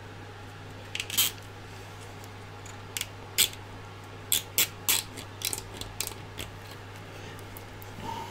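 Nylon zip ties being threaded and pulled tight around 3D printer cables, giving short, sharp plastic clicks in small clusters of two or three.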